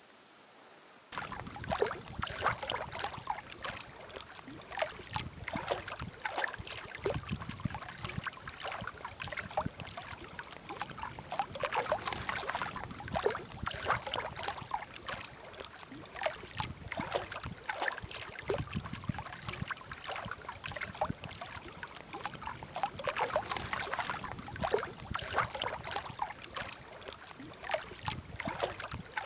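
Wind-driven waves lapping and splashing against a rocky shore: a dense run of irregular splashes that starts suddenly about a second in.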